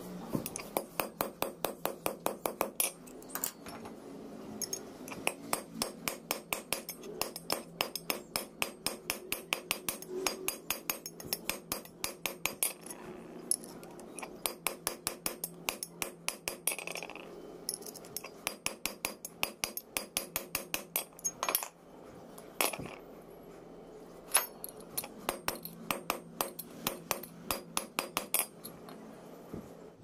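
Hand hammer striking steel on a steel rail-section anvil: rapid runs of sharp metallic blows, about four or five a second, with a few short pauses, as a short strip of flat bar is hammered round a steel rod into a ring.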